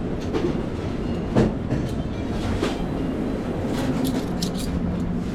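Commercial kitchen background: a steady low rumble with scattered clinks and clatters of pans and utensils.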